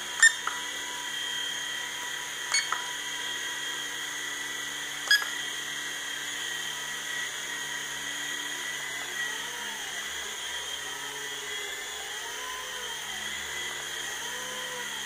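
Jamara Gyro V2 small electric RC helicopter hovering: a steady high motor and rotor whine. Three short sharp sounds stand out near the start, about 2.5 s in and about 5 s in, and from about 9 s, in turbo mode, the motor pitch rises and falls in repeated swells as it flies about.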